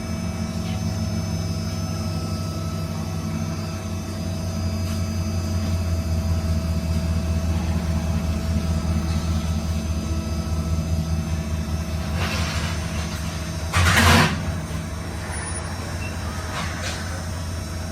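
Box Chevy's engine idling with a steady low rumble. A short, loud hiss breaks in about 14 seconds in.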